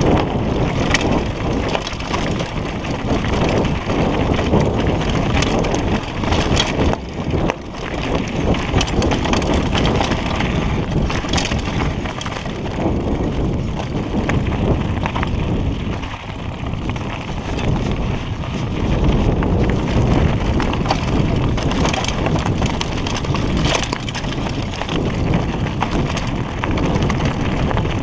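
Mountain bike rattling down a rocky singletrack: tyres crunching over stones and loose gravel, with frequent sharp knocks and clatter from the bike as it hits rocks.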